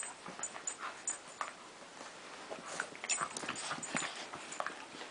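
A husky puppy and a Border terrier puppy play-fighting: short whimpers and panting over irregular scuffling sounds.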